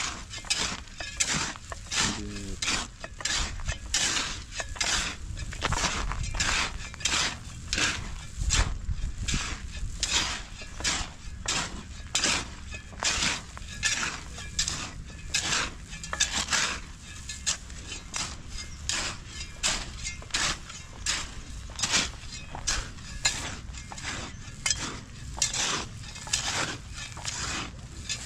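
Metal hand tools scraping and striking through a heap of wet concrete mix in a steady rhythm of about two strokes a second, as the cement is worked in by hand.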